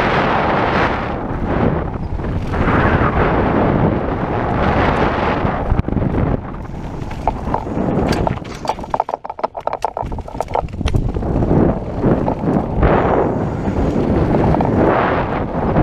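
Wind buffeting the microphone of a camera mounted on a descending mountain bike, along with tyre rumble on a dirt trail. About eight seconds in, the rush drops for a few seconds and quick clicking and rattling from the bike comes through.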